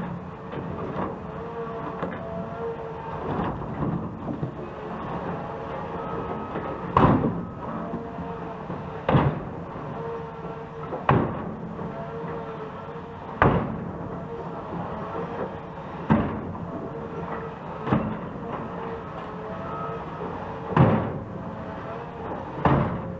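Heavy road-construction machinery running with a steady engine hum, and a heavy knock or bang about every two seconds.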